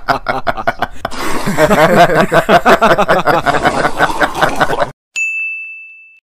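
Two men laughing heartily together in rhythmic 'ha-ha-ha' peals; the laughter cuts off suddenly about five seconds in. Then a single high ringing tone sounds and fades away over about a second.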